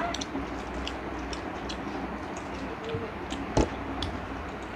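Eating sounds: chewing and small wet mouth clicks from people eating fried chicken and noodles, over a steady low hum. A single thump about three and a half seconds in.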